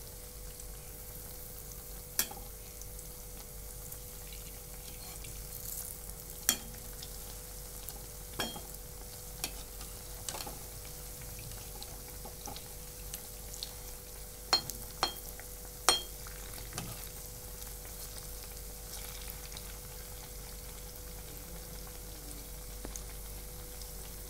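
Urad dal and taro-leaf vadas sizzling steadily in hot oil in a kadhai. A steel slotted spoon clicks against the pan several times as the vadas are turned over.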